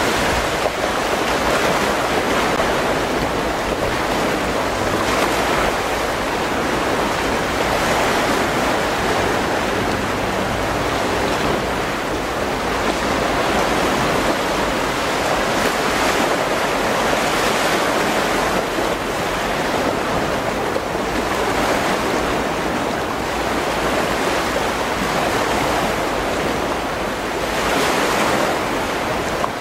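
Wind and a choppy sea: a steady rush of wind on the microphone mixed with waves, swelling in gusts every few seconds.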